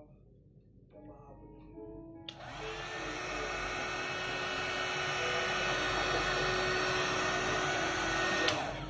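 Panasonic hair dryer switched on a couple of seconds in, its motor spinning up to a steady rush of air with a whine, then switched off with a click near the end. Soft music plays under it at the start.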